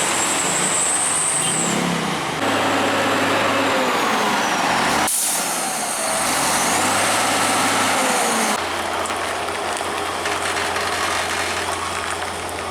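Heavy truck running on a steep mountain descent, with air brakes hissing. A sudden loud hiss starts about five seconds in and lasts about three seconds, after which a steady low hum remains.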